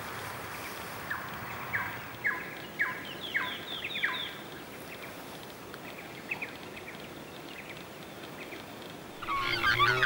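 Black swans calling: a run of short, repeated calls about two a second, a couple more a little later, then a flurry of many overlapping calls near the end, over a steady outdoor background hiss.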